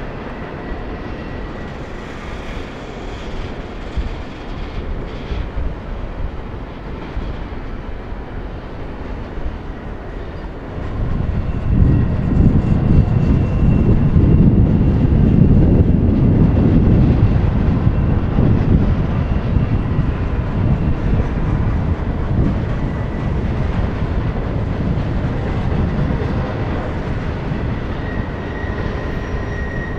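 Double-stack intermodal freight train rolling past: a steady rumble of steel wheels on the rails under the loaded container well cars. It grows louder about eleven seconds in and stays heavy.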